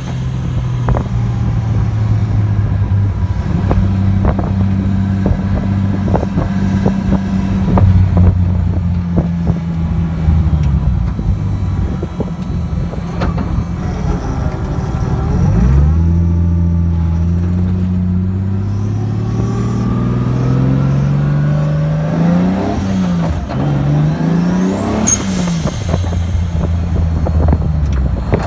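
Toyota 1JZ-GTE turbocharged straight-six engine heard from inside the car's cabin on a test drive, not yet tuned. It runs steadily, eases off, then pulls up through the revs from about halfway, with a couple of quick rev rises and drops near the end; scattered light clicks run through it.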